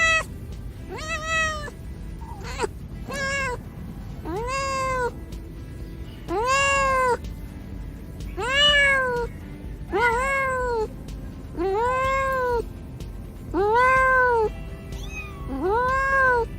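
A domestic cat meowing over and over, about ten drawn-out meows, each rising then falling in pitch, one every second or two.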